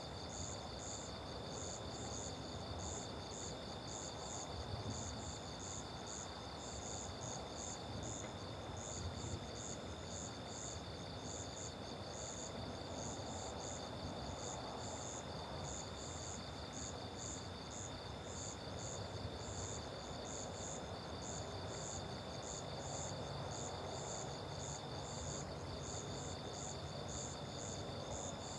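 Night insect chorus of crickets: a steady high trill and a faster high pulsing chirp, about three pulses a second, running together without a break.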